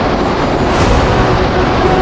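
Yamaha GP1800R SVHO jet ski's supercharged four-stroke engine running under way, with wind on the microphone and the rush of water against the hull, and a brief louder rush of spray just under a second in.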